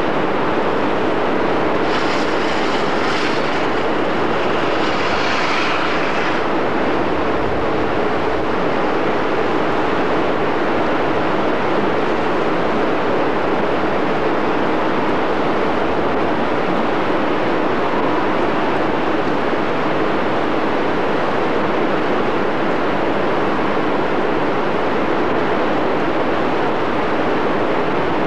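Steady rushing roar of the churning tidal rapids of the Reversing Falls, going on without a break, with a hissier stretch about two seconds in.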